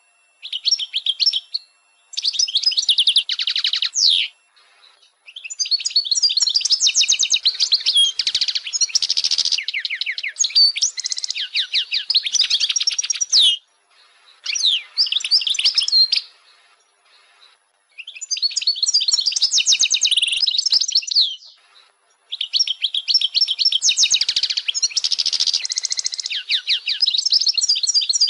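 European goldfinch song: high-pitched, rapid twittering and trills in phrases of one to four seconds, broken by short pauses.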